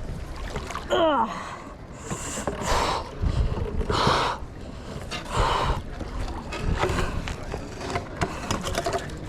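Water splashing in several separate bursts, as when a magnet and its haul are worked in and out of the water, with a short falling-pitched cry about a second in.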